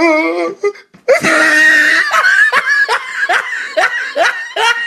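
A person laughing hard: a quick, steady run of short rising "ha"s, about three a second, starting about a second in after a drawn-out wavering vocal sound.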